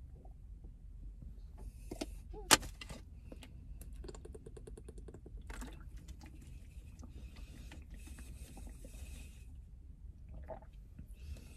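Small handling sounds over a low steady hum: a few light clicks, then one sharp click about two and a half seconds in. A quick rattle follows about a second later, then several seconds of rustling.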